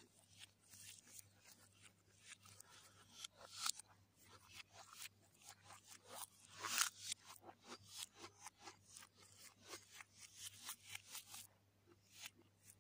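Close-up eating sounds with bare hands: a crisp fried puri being torn and fingers scraping and picking through fried rice on a plate, a run of small crackles and clicks with a couple of louder crunches, one a little before the four-second mark and the loudest about seven seconds in.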